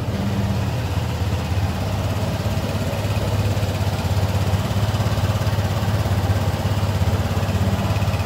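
Lambretta scooter's single-cylinder, four-stroke, fuel-injected engine idling steadily with a low, even hum.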